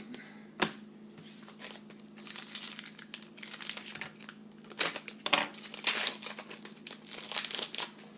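Foil wrapper of a wrestling trading card pack crinkling and being torn open in irregular bursts, with a sharp crackle just after the start and the densest crinkling in the second half. A steady low hum runs underneath.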